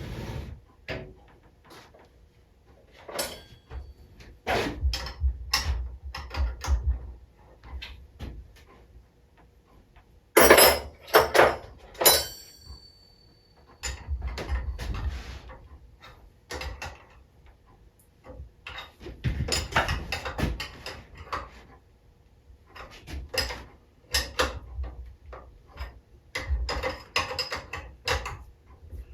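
Irregular clicks, clinks and knocks of small metal engine parts and hand tools being handled and fitted, in short clusters with pauses between.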